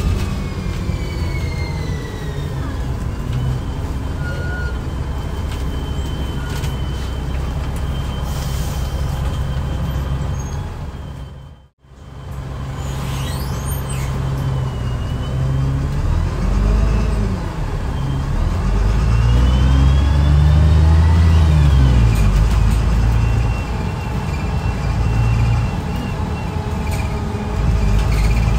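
Cummins ISBe220-31 six-cylinder diesel bus engine driving through a Voith DIWA automatic gearbox, with a thin mechanical whine above the engine note. The engine pitch rises and falls twice in the second half as the bus accelerates, and the sound cuts out briefly about twelve seconds in. The uploader calls the engine trashed: worn out, but still running.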